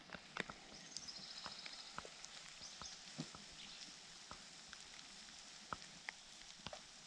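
Quiet mountain-forest ambience: faint scattered ticks and snaps, and a short high bird trill about a second in.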